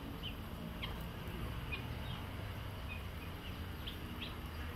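Scattered short, high bird chirps, several a second apart, over a steady low outdoor rumble.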